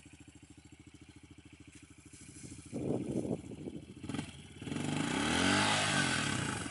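Honda 110 pit bike's single-cylinder four-stroke engine with the bike bogged in mud: faint and low at first, then blipped a little under three seconds in, then held at higher revs, rising and falling in pitch and getting louder near the end.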